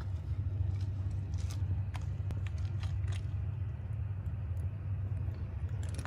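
A steady low rumble with a few light clicks scattered through it.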